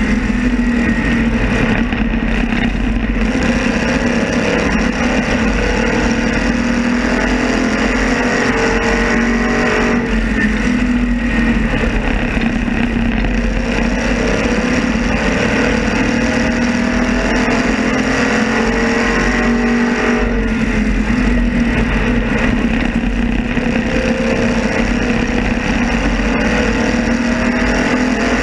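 Modified race car engine running at racing speed, heard on board; its pitch climbs again and again as it accelerates and drops back as it lifts, with other cars' engines running close by.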